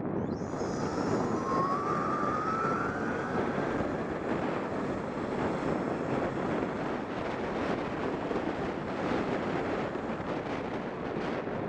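Heavy wind buffeting a helmet-mounted camera's microphone while riding an electric bike. From about half a second in, the motor's whine rises in pitch for a few seconds as the bike speeds up out of a turn.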